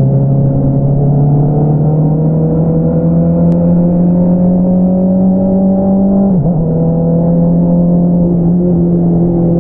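2022 Honda CBR650R's inline-four engine running through an Akrapovič single-outlet exhaust. It pulls up through a gear with steadily rising revs, dips sharply about six seconds in as it shifts up, then holds steadier revs.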